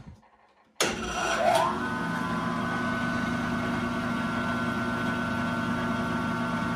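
Rikon 10-326 14-inch band saw with a 1¾-horsepower motor switched on about a second in: it starts suddenly, its whine rises as the motor and wheels spin up, then it runs at a steady pitch. The freshly tensioned blade runs extremely smooth, with no vibration.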